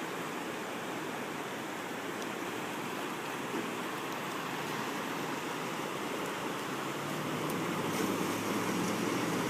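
Steady rushing of river water, with a vehicle engine's low hum faintly coming in and growing a little louder toward the end.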